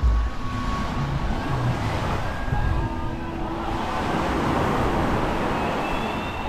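Beach ambience: low waves washing onto the sand in an even rush of noise, with faint, distant voices of beachgoers.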